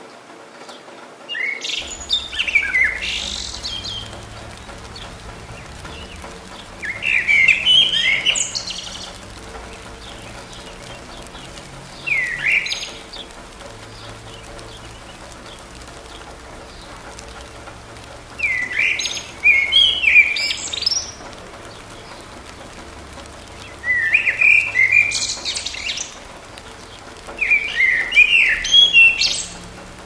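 A songbird singing short, quickly varied phrases of a second or two, about six of them spaced a few seconds apart, over the steady hiss of light rain in woodland.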